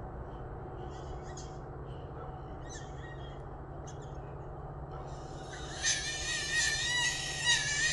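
An animal's loud, shrill, wavering scream beginning about five seconds in and lasting several seconds, preceded by a few faint short high calls, over a steady low hum.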